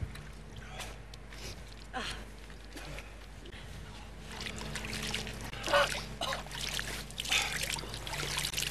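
Water splashing and dribbling in buckets as people scoop it over their faces to rinse pepper spray from their eyes, with short gasping breaths.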